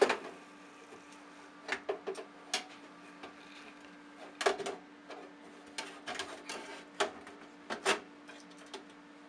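Irregular plastic and metal clicks and knocks, about ten of them, as a service processor card with blue plastic latch tabs is slid back into its slot in an IBM Power5 server chassis; the sharpest knock comes right at the start.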